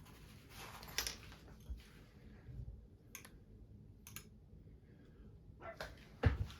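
A few scattered sharp clicks and light rattling from a balisong knife and its packaging being handled, with a louder knock near the end.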